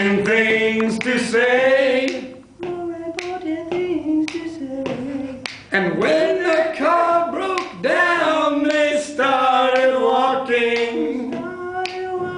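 Two men singing a duet a cappella, with short sharp finger snaps along with the singing.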